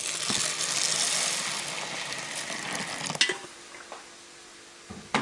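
Hot water pouring in a steady stream onto dry buckwheat grains in a plastic bowl. The pour stops after about three seconds with a knock, and a sharp click comes near the end.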